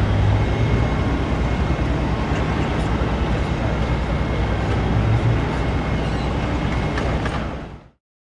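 Diesel engine of Komatsu's autonomous mining haul truck running steadily as the truck drives slowly away, a low, even hum. It fades out near the end.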